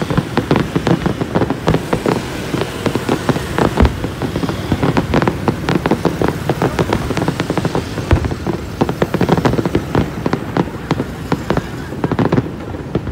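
Fireworks going off in a dense barrage of rapid pops and crackles, with a few heavier bangs among them, thinning out near the end.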